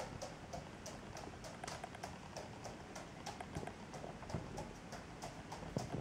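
Wood pigeon's claws clicking on a laminate floor as it walks, a steady run of light ticks at about three a second.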